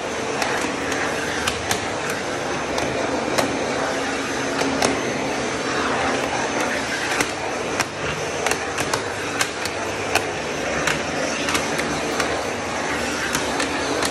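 Vacuum cleaner running steadily as its wide floor nozzle is worked along stair treads, with frequent sharp clicks throughout.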